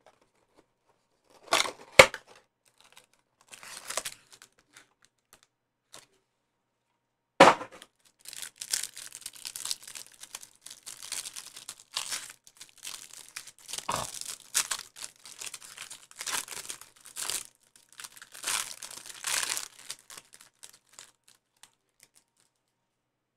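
Cardboard hanger box of trading cards torn open with a few sharp snaps, then the foil card-pack wrapper inside torn and crinkled for about twelve seconds before the cards come out.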